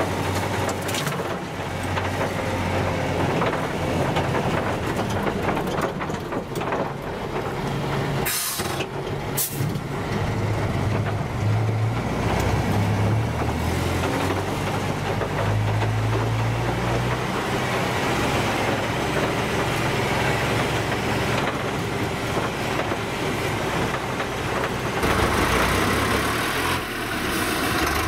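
Tatra V8 diesel engine of a SKOT 8x8 armoured vehicle running under load, heard from inside the cab, its note shifting up and down as it drives over rough ground. Two sharp knocks come about a third of the way through.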